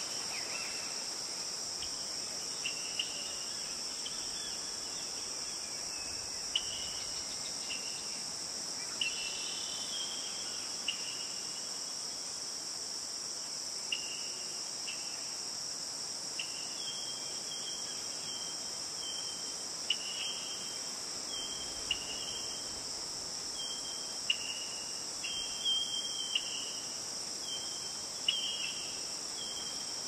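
Steady high-pitched drone of an insect chorus, with short high bird chirps over it that come sparsely at first and then repeat regularly, about one or two a second, through the second half.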